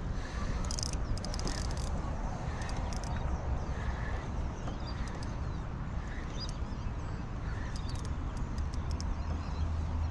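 Outdoor ambience with a steady low rumble of wind on the microphone, scattered light clicks and taps, and a few faint bird chirps.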